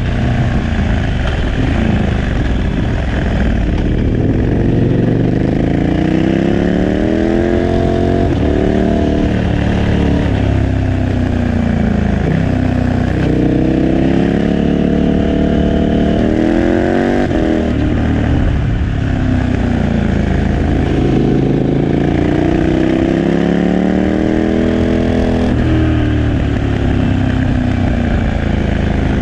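KTM 1290 Super Adventure S's V-twin engine through a Remus 8 aftermarket exhaust, under way and accelerating through the gears: the engine note climbs, drops sharply at each upshift, about four times, and climbs again.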